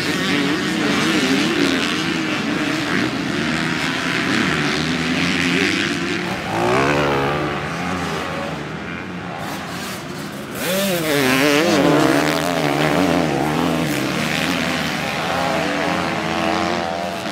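Motocross dirt bike engines revving up and down as riders race around a dirt track, the pitch rising and falling with throttle and gear changes. The revving gets louder for a couple of seconds about ten and a half seconds in.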